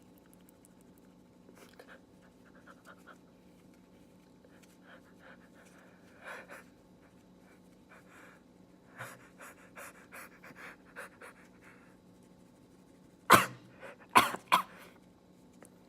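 A man's breathy sniffs and short catching breaths as his nose is tickled, building to a loud sneeze near the end, followed by two more sharp bursts of breath.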